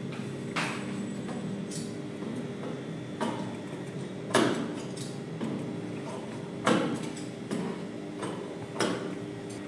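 Small thread snips clicking shut as loose thread ends are trimmed from a sewn shirt, about seven sharp clicks spread irregularly, the loudest a little past four seconds and near seven seconds. A steady low hum runs underneath.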